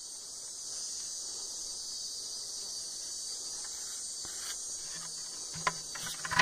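A steady, high-pitched chorus of insects, with a few sharp clicks near the end.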